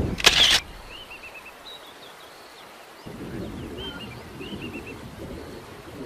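Small birds chirping in short high trills in the background, with a brief loud rush of noise just after the start.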